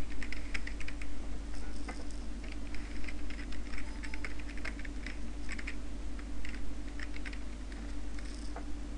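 Typing on a computer keyboard: irregular, quick key clicks, over a steady low hum.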